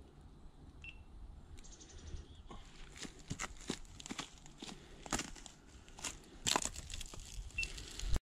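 Dry leaf litter and thin snow crunching and crackling under hands and boots on the forest floor. It starts quietly, and from about two and a half seconds in it becomes a dense run of sharp crackles, loudest about two-thirds of the way through.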